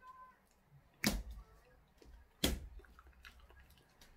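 Close-miked eating sounds from biting and chewing a banana, with two loud, sharp mouth sounds about a second and a half apart.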